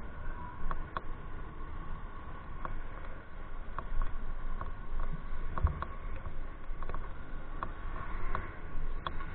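Wind and road rumble from a moving bike, with scattered small clicks and rattles and a faint steady whine.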